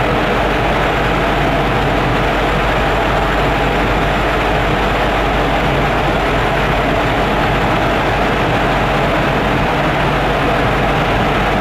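Steady interior running noise of a rubber-tyred VAL 206 driverless metro car at constant speed: an even rumble with a low hum underneath.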